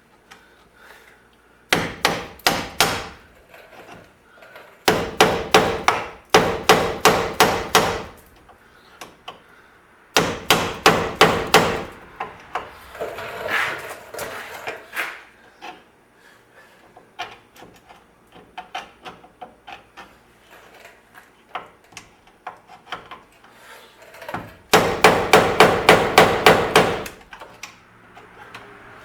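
Hammer blows driving a wheel bearing out of a VW trailing arm's bearing housing, its seal and C-clip already removed. The strikes come in fast volleys of about five a second, a couple of seconds each, four times, with lighter scattered knocks in between.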